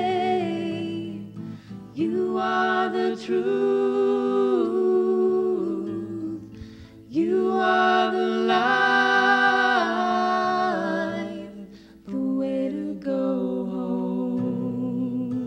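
A woman singing a slow song with long held notes, a man's voice joining in harmony, to an acoustic guitar. The phrases last a few seconds each, with short breaks between them.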